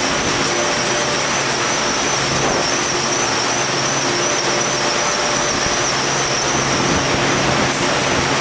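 Steady running of the pumps that load plastic resin from a rail hopper car: a constant machine hum with a high, wavering whine over it.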